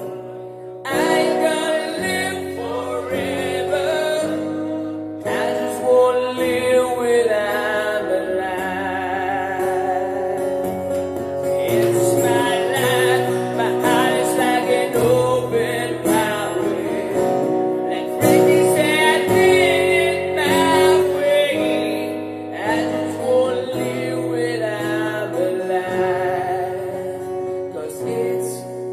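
A man singing a slow rock ballad live over an acoustic guitar.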